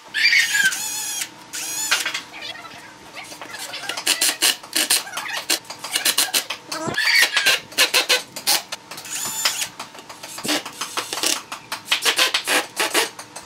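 Cordless driver screwing small screws through a steel hinge into a wooden door frame, heard as runs of rapid clicking and rattling that start and stop. High, wavering bird chirps come through several times.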